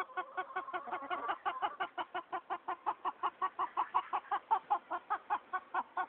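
A chicken clucking in a rapid, even run, about five clucks a second, with a higher drawn-out note over the first second; the clucking stops abruptly near the end.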